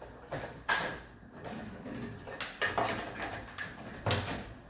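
Four separate sharp clicks and knocks of hard objects being handled, like a panel or drawer being opened and shut.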